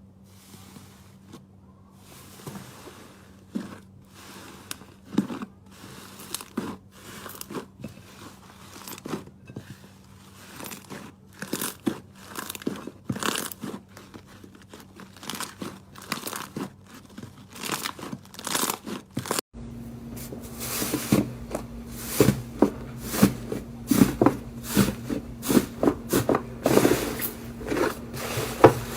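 Slime being squeezed and poked by hand, giving a run of short, crunchy crackling clicks. They come louder and closer together from about twenty seconds in.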